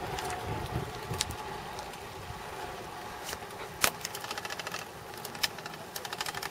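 Low wind rush on the microphone fading over the first couple of seconds. Then one sharp knock about four seconds in, followed by the fast, even ticking of a bicycle's freewheel hub as the bike coasts downhill.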